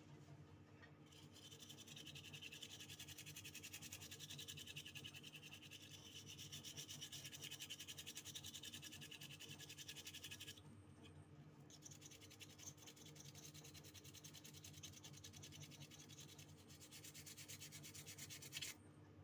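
A small brush scrubbing a water-damaged mobile phone's circuit board with thinner to clean off corrosion deposits: rapid, fine scratchy strokes, with a pause of about a second around ten seconds in.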